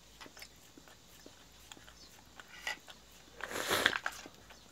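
Jindo dog licking ice cream from a handheld cup: a run of small wet lapping clicks, with one louder scraping burst lasting about half a second near the end.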